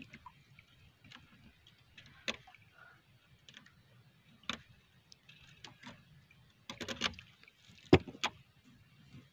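Scattered short clicks and knocks as a nylon handline is hauled in hand over hand aboard a small wooden outrigger boat, a quick cluster about seven seconds in and the sharpest click just before eight seconds, over a faint low rumble.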